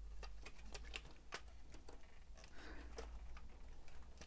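Scattered light clicks and taps of hard plastic parts as the pieces of a large transforming robot combiner figure are handled and tabbed together.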